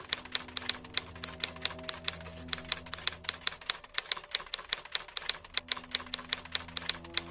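Typewriter keys clacking in a quick, even run of about five or six strikes a second, a sound effect for on-screen text being typed out letter by letter.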